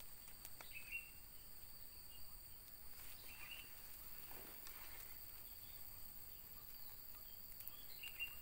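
Faint, steady high-pitched insect drone, with a few short bird chirps about a second in, around three seconds, and near the end.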